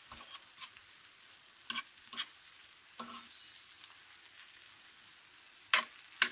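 Rice with onions and peppers sizzling in a frying pan as it is stirred, a faint steady hiss. The utensil clicks against the pan a few times, with two louder knocks near the end.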